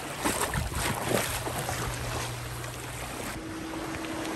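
A steady engine hum under outdoor wind and water noise, with a few light knocks early on; about three and a half seconds in the sound cuts abruptly to a different, higher steady hum.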